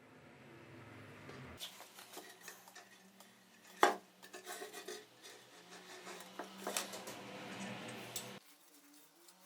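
A run of metallic clinks and knocks of tools and metal parts being handled, the loudest a sharp clank about four seconds in.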